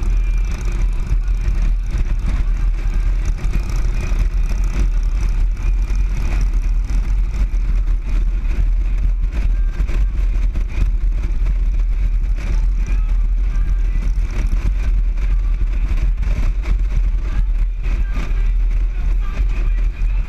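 Steady wind rush and motorcycle engine noise at cruising speed, picked up by a camera mounted behind the bike's windshield.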